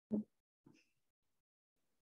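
A short clipped vocal sound just after the start, then a much fainter brief one, with dead silence around them.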